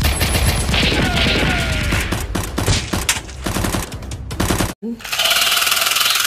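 Rapid machine-gun fire sound effects, a dense run of shots that cuts off sharply about five seconds in. A battery-powered toy revolver's electronic gun sound effect follows at once: a steady, rapid buzzing rattle as its light-up cylinder spins.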